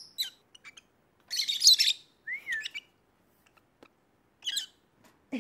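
Peach-faced lovebirds chirping in short, sharp, high calls, with one loud, harsh screech about a second and a half in.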